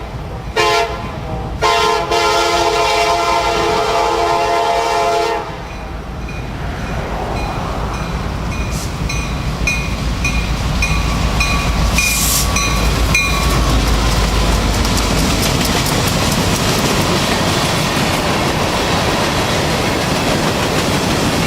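Freight locomotive horn sounding two short blasts and then one long blast of about four seconds. The train then rolls past, its wheels clattering rhythmically over the rail joints under a loud, steady rumble. A high ding repeats at a steady rhythm for a few seconds in the middle.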